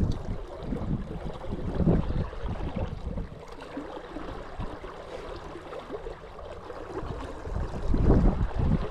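Wind buffeting the microphone in uneven gusts, louder near the end, over the steady rush of the river.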